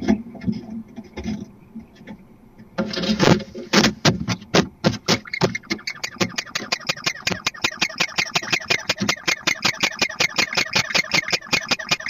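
Barn owl landing with a thump at a nest box entrance, then calling inside the box in a rapid, even series of short calls, about five a second.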